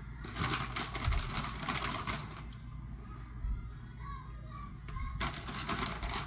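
Plastic bag of shredded cheese crinkling as it is shaken and handled, in two spells of rapid rustling: one about two seconds long, then a shorter one near the end.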